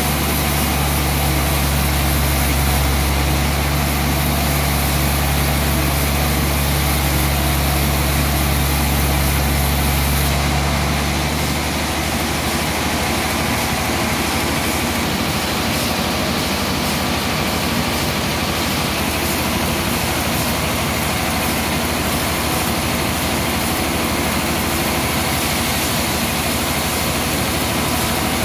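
Large sawmill band saw running with a steady, loud machine noise. About eleven seconds in, its deep hum drops away and a steadier, noisier sound is left.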